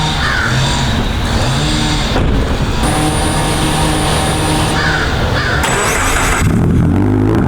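Turbocharged Subaru BRZ's flat-four engine running through a new Nameless catback exhaust (mid pipe and track pipe), its note shifting up and down in steps and climbing near the end as it is revved.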